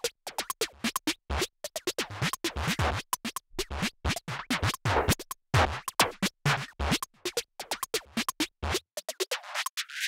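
Background electronic music with a fast, chopped drum-machine beat. Near the end the bass drops out, leaving only the upper parts.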